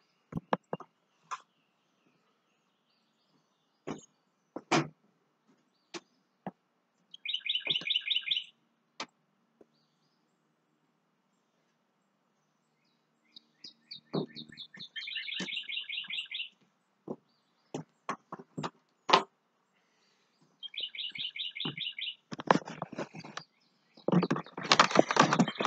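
A bird giving a rapid chattering trill in three short runs, among scattered sharp clicks and knocks. Near the end comes a loud rustling of the camera rubbing against a jacket.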